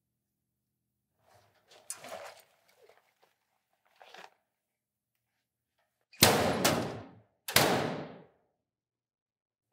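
A metal locker being handled, with small clicks and rattles, then three loud sharp bangs with short ringing tails. The first two bangs come close together and the third about a second later.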